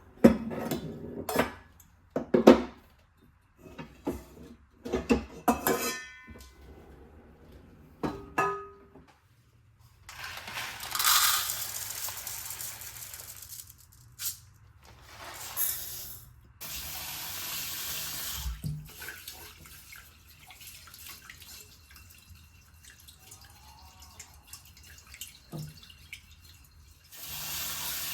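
A run of sharp clinks and knocks of kitchenware being handled, some ringing briefly, followed by a kitchen tap running in several spells with pauses between.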